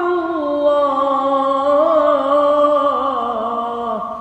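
A voice singing a long held, wavering note in a single continuous line. It dips in pitch and stops about four seconds in.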